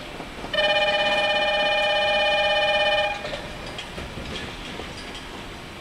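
A steady, buzzing warning tone at a railway platform, held for about two and a half seconds from about half a second in, then cut off. Station background noise runs under it.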